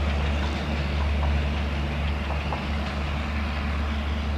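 Steady low rumble of a passenger train's coaches running on the rails as the end of the train moves away, with a few faint clicks.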